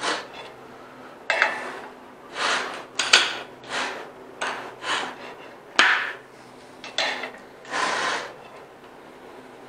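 Gearshift lever of a 1941 Allis Chalmers C transmission being worked by hand through the gears: a run of a dozen or so short metallic clunks and scrapes as the gears slide in and out of mesh. The owner feels the transmission isn't quite right.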